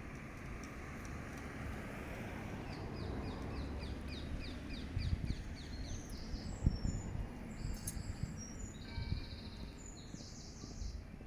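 A small songbird singing: a quick run of about a dozen falling high notes, then higher chirps and a buzzy trill, over a steady low rumble of background noise with a few low thumps.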